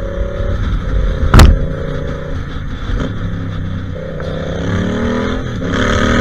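Yamaha Ténéré 700's parallel-twin engine running under way, holding a steady note at first and then rising in pitch from about four seconds in as the bike accelerates. A single sharp knock about a second and a half in is the loudest sound.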